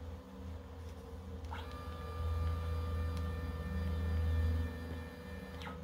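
Stepper motors of a CNC 3040 T-D router jogging the Z axis over a steady electrical hum. About one and a half seconds in, a whine of several steady tones sweeps up in pitch as the motor ramps up to speed. It holds, then sweeps down and stops near the end as the move finishes.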